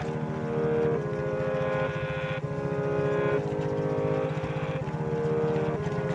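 Background music: sustained electronic chords that change every second or so over a fast, even pulsing low note.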